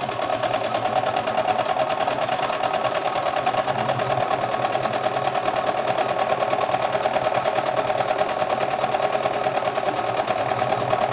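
CNY E960 multifunction sewing and embroidery machine sewing a buttonhole, its needle running at a fast, even stitching rhythm without a break.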